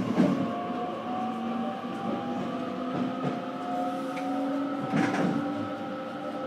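Inside a JR Kyushu BEC819 series battery-electric train, the motor car running along: traction motor whine climbing slowly in pitch as the train gathers speed, over steady rumbling running noise. Two knocks from the running gear, one at the start and one about five seconds in.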